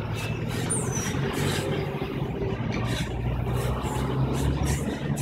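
A heavy vehicle running close by with a low, steady hum that swells in at the start, with faint clicks over it.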